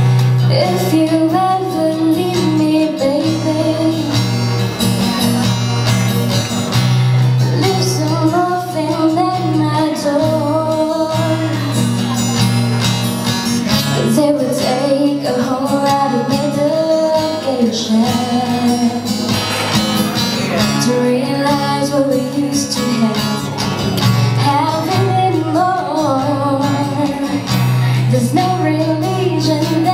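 A woman sings into a microphone over an acoustic guitar, which is strummed and picked with sustained low bass notes: a live acoustic duet of a pop song.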